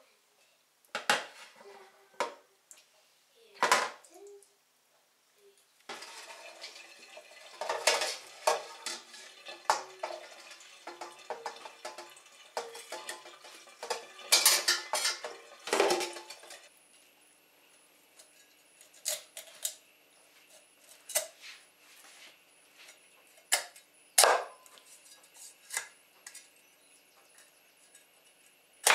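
Metal slotted spoon knocking and scraping against stainless steel pot and bowl: scattered clanks, a denser run of clattering through the middle, then a few single knocks.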